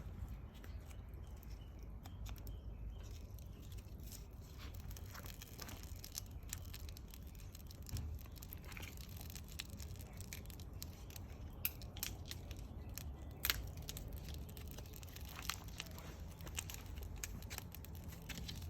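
Wood bonfire crackling, with scattered sharp pops and snaps over a low steady background noise.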